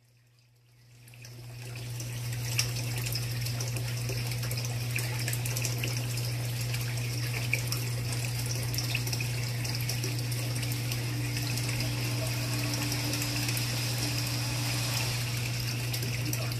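Steady running and circulating water in a doctor fish foot-spa tank, with a low hum from its pump. It rises in over the first two seconds, then holds steady, with a couple of small clicks.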